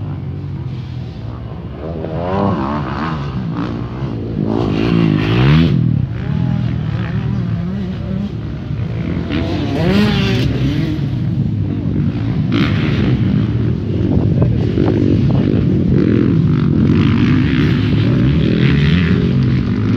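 Motocross bike engines revving, their pitch rising and falling again and again as the bikes accelerate and ease off, several overlapping.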